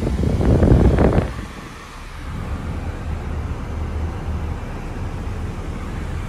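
Range Rover Velar's climate-control fan blowing inside the cabin. The rushing air is loud for about the first second, then drops to a quieter steady low hum.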